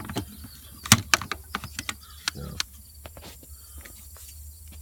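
Metal hand tools such as pliers and cutters clicking and clinking against each other as they are picked up and shifted in a toolbox drawer: an uneven scatter of sharp clicks, the loudest about a second in.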